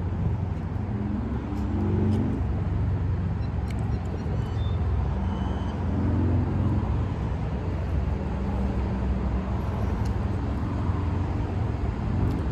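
Steady rumble of road traffic, with car engines swelling a few times as vehicles pass.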